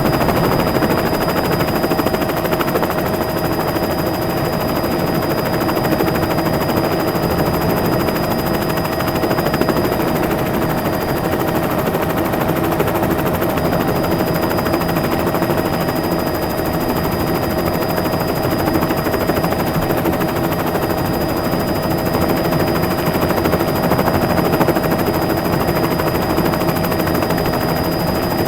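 Helicopter running steadily: a rapid, even rotor chop with a steady high whine over it.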